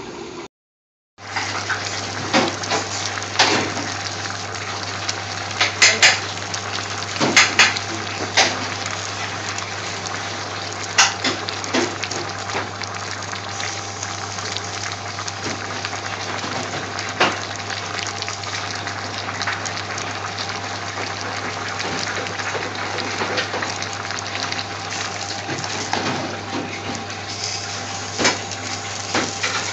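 A large pot of onion base gravy cooking on a high heat: a steady watery bubbling hiss over a low hum, with scattered sharp clinks and knocks of pots and utensils.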